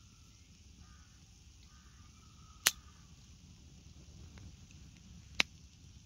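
Campfire burning, with two sharp pops of burning wood, about two and a half seconds apart.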